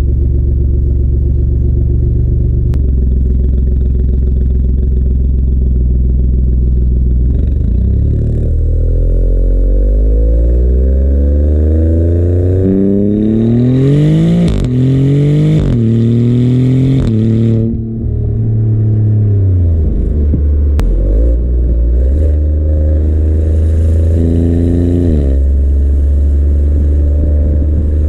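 Exhaust of the 2024 Maserati GranTurismo Modena's twin-turbo 3.0-litre Nettuno V6, heard at the tailpipes: a steady drone, then from about eight seconds in a hard acceleration, its pitch climbing and breaking at several upshifts. Near eighteen seconds the pitch falls away as the throttle is lifted, and it settles into a steady cruise.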